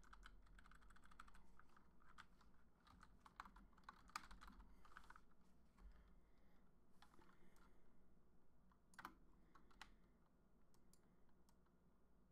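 Faint typing on a computer keyboard: irregular runs of key clicks, thinning to a few single clicks in the second half.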